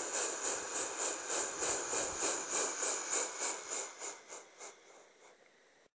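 Steam locomotive sound effect: rhythmic chuffing with a hiss of steam at about four beats a second, the beats spacing out and fading away about four to five seconds in, like an engine slowing to a stop.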